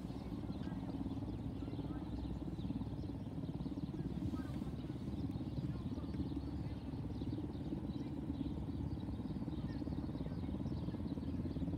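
Outdoor ambience: a steady low rumble, with faint distant shouts of players and a few faint chirps.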